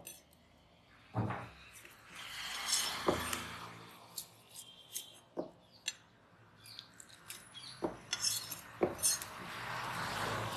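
Large curved fish-cutting knife slicing and scraping a black pomfret on a wooden chopping block. A handful of sharp knocks of the blade against the block come between stretches of scraping.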